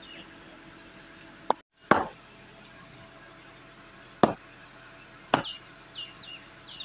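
Four sharp, irregular knocks, then quick falling bird chirps in the last second.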